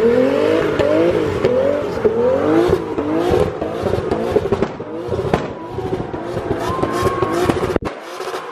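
A car engine revved hard again and again, each rev a quick rising sweep in pitch, at a car meet's street takeover.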